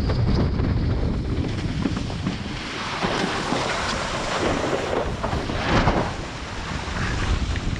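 Strong wind buffeting the microphone over water rushing and splashing past a planing windsurf board, with two surges of spray, about three seconds in and near six seconds.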